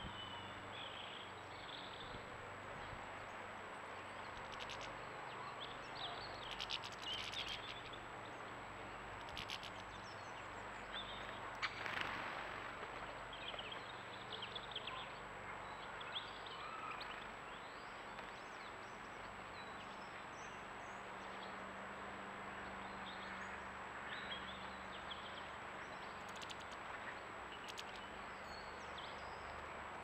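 Goldfinches twittering in short, scattered high chirps over a steady outdoor background hiss, with a few sharp ticks in between, the loudest about twelve seconds in.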